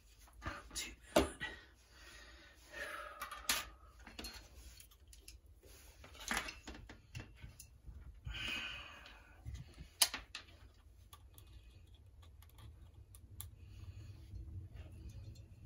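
Scattered clicks and knocks of hand tools and refrigeration parts being picked up and set down, with a brief hiss about eight and a half seconds in and a faint low hum near the end.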